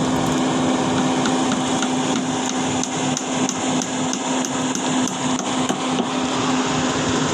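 Rapid metal hammer strikes, about three or four a second, over the steady hum of a running engine.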